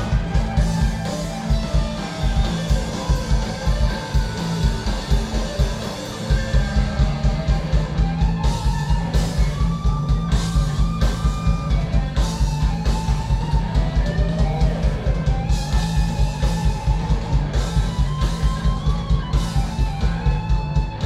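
Rock band playing live: electric guitars over a drum kit keeping a steady, driving beat.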